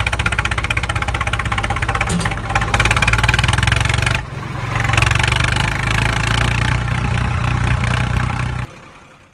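Diesel engine sound of a tractor-type vehicle, running with a steady pulsing beat. It dips briefly about four seconds in, picks up again and cuts off suddenly near the end.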